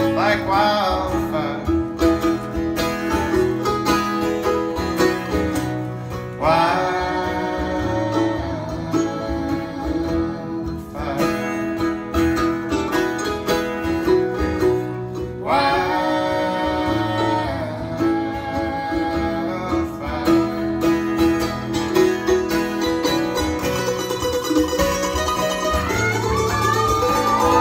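Acoustic guitar and mandolin playing a slow folk song live, with a gliding melody line that comes in and drops out in phrases every several seconds.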